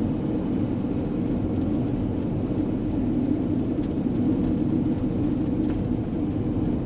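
Steady road and drivetrain noise inside the cab of a 2016 Winnebago View motorhome driving downhill, an even rumble with a few faint ticks and rattles.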